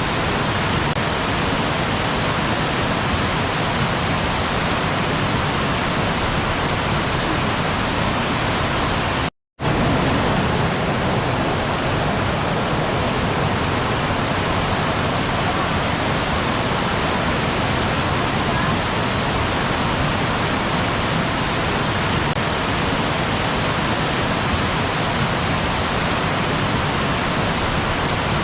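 Waterfall, its water rushing in a steady, even roar. About nine seconds in it drops out to silence for a split second, then resumes unchanged, like an edit or loop point.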